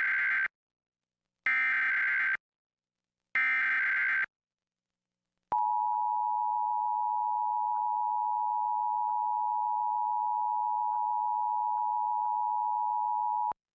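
Emergency Alert System test: three SAME digital header bursts of about a second each, a second apart. Then the steady EAS attention tone comes in and holds for about eight seconds, cutting off abruptly near the end.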